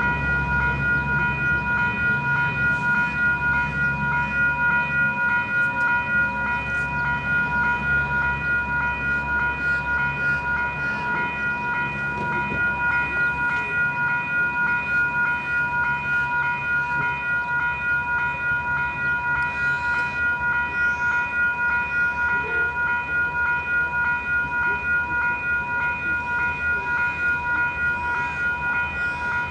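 Electronic level-crossing bells (E-bells) ringing in a rapid, even pulse, sounding while the crossing is activated for an approaching train. A low rumble lies underneath them for roughly the first twelve seconds.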